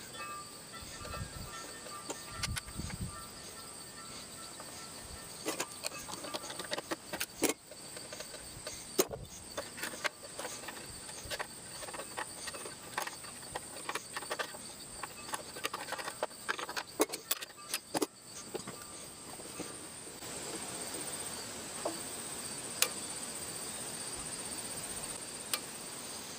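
Steady high-pitched insect chirring, louder in the last few seconds, with scattered sharp clicks and knocks through the middle.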